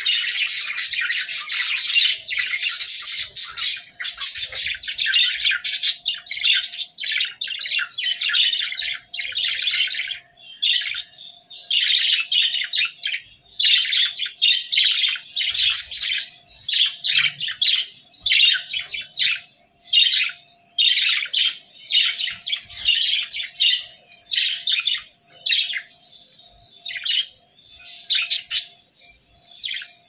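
A flock of budgerigars chattering, chirping and squawking. The chatter is dense and near-continuous at first, then breaks into shorter bursts with brief pauses from about a third of the way through.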